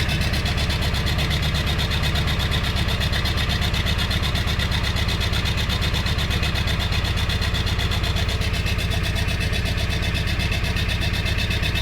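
7.3-litre diesel V8 idling steadily while still cold, after a hard start at 15°F without its block heater plugged in.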